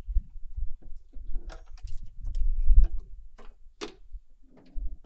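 Dodge Challenger's plastic upper intake manifold, with its throttle body, being worked loose and lifted off the V6: scattered clicks, knocks and plastic rattles at irregular intervals.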